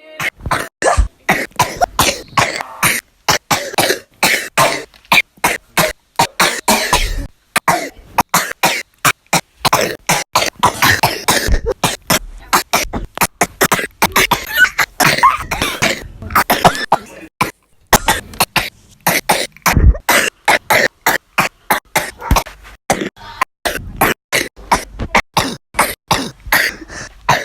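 A person sneezing over and over in a long, rapid series of short sneezes, about two or three a second, broken by a few brief pauses.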